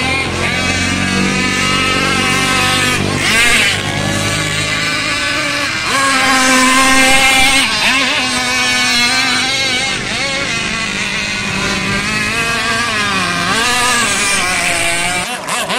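Small petrol-engined radio-controlled speedboats running flat out, their 26 cc two-stroke engines giving a high, buzzing whine whose pitch rises and falls as the throttle and the boats' turns change.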